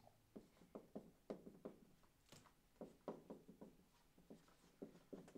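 Marker writing on a whiteboard: a faint, irregular run of short strokes as the letters are drawn.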